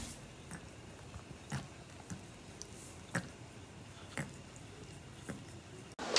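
Cat licking its wet paw: faint, irregular wet licking clicks, roughly one a second.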